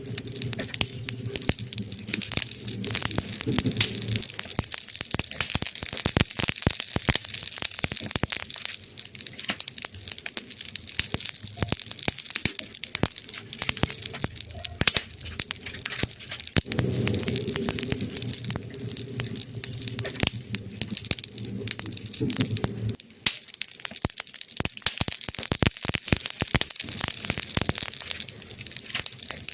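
Campfire burning, wood crackling with many sharp irregular pops over a steady hiss. A low rumble runs under it for the first few seconds and again for several seconds in the second half, dropping away suddenly about 23 seconds in.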